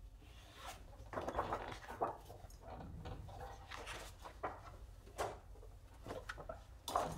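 Rummaging through sheets of paper and card: irregular rustling and soft knocks, with a sharper knock near the end.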